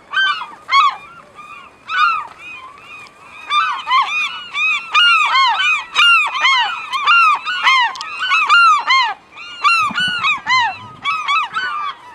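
Many gulls calling at once: short, loud, arching cries that overlap, sparse at first and turning into a dense chorus about three or four seconds in.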